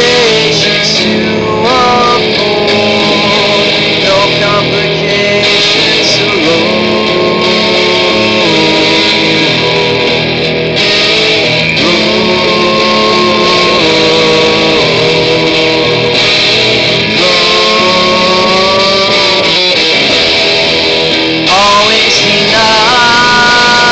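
Loud band music with guitar: a wordless stretch carried by a lead line of long held notes that bend and slide in pitch.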